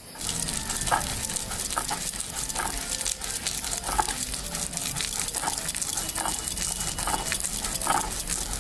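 Stone grinding slab and grinding stone (sil-batta) working roasted taro-leaf paste with black cumin: a steady gritty scraping and crackling of stone rolled over the thick paste, with short squeaks now and then. The paste is ground dry, without water.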